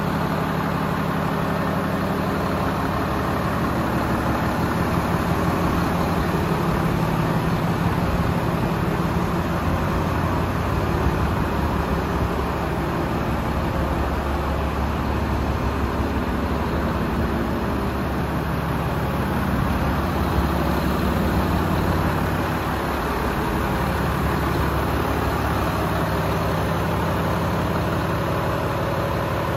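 Volvo FM 450 tractor unit's 13-litre six-cylinder diesel engine idling steadily.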